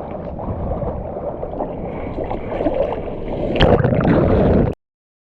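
Water rushing and splashing with wind buffeting a GoPro's microphone while surfing, swelling to its loudest surge near the end, then cutting off abruptly to silence.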